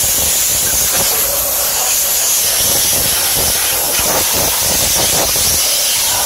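Compressed nitrogen blown through an HVAC unit's coil: a steady, loud hiss of gas from the nozzle, cleaning out dirt that the technician bets has filled the coil.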